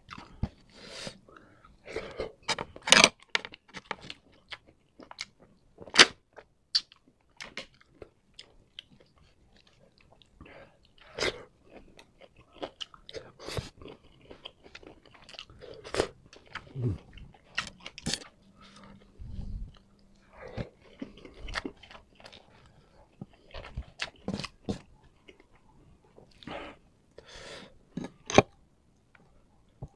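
A person eating close to the microphone: chewing with sharp, crisp crunches and mouth clicks at irregular intervals.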